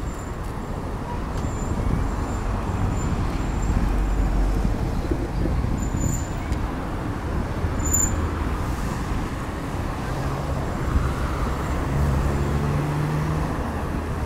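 Road traffic noise: cars running along a city street, heard from a moving bicycle, with a steady engine hum in the last few seconds.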